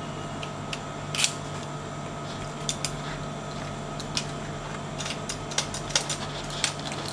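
Scattered small clicks and rattles from a smart door lock's mechanical key being worked in its cylinder with no latch or spindle fitted, so the turn operates nothing. Several clicks come close together near the end, over a steady low hum.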